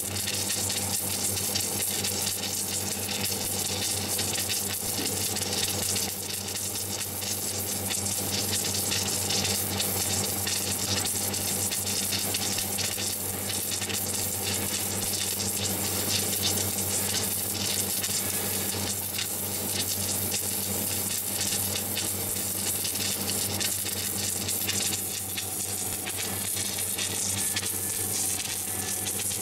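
Automatic pipe welding machine's arc sizzling steadily as the torch lays a continuous weld bead around a turning steel pipe, over a steady low hum.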